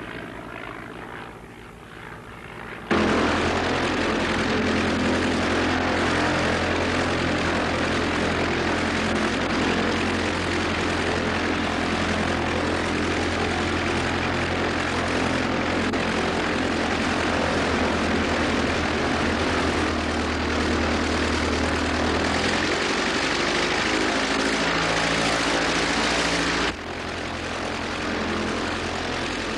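Propeller biplane's piston engine running steadily in flight. It is quieter at first, suddenly much louder and closer about three seconds in, and somewhat quieter again near the end.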